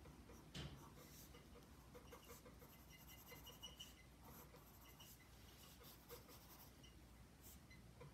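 Faint scratching of a pencil on gray sketchbook paper in short, irregular strokes, over a low steady room hum.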